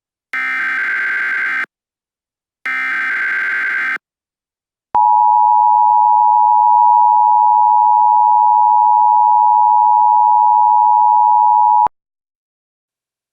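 Emergency Alert System tones: two bursts of the SAME header's digital data tones, about a second and a half each, then after a short pause the louder two-tone attention signal (853 and 960 Hz) held steady for about seven seconds and cut off sharply.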